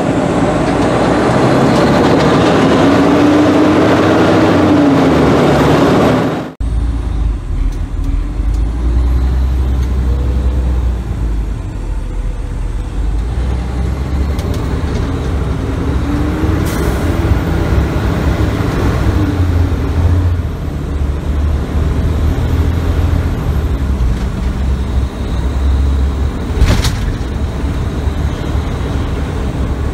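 Ladder truck's diesel engine running with road noise, heard from inside the cab while driving. The sound changes abruptly about six seconds in, and there is one short sharp sound near the end.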